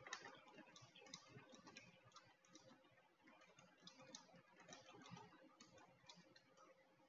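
Faint, irregular clicking of typing on a computer keyboard, the keystrokes thinning out near the end.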